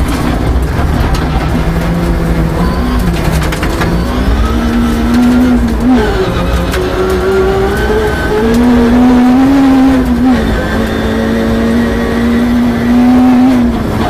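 Rear-wheel-drive Peugeot 306 rally car heard from inside the cabin, its engine revving hard and climbing through the gears, with sharp drops in pitch at shifts about six and ten seconds in. Stones from the gravel road click against the underbody, mostly in the first few seconds.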